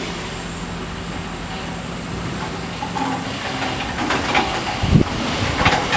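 Diesel farm tractor engine running steadily, a low mechanical rumble with hiss. A low thump comes about five seconds in.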